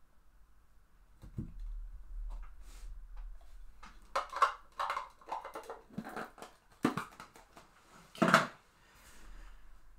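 A trading-card box and card stack being handled on a tabletop: a run of light knocks, taps and rustles, with the loudest a short knock about eight seconds in.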